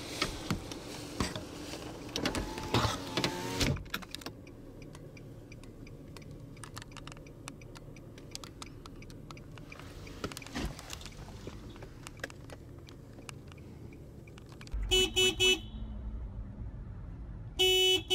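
Low vehicle rumble, then near the end a car horn sounds twice, each time in a quick run of short stuttering blasts, heard from inside the vehicle.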